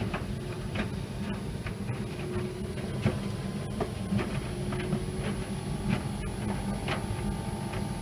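Tumble dryer running with its drum turning: a steady low hum with irregular light knocks and clicks from the load tumbling inside.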